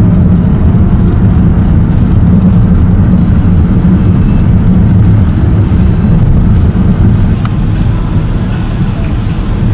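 Steady low rumble of a car driving on a wet road, engine and tyre noise heard from inside the cabin, easing slightly near the end.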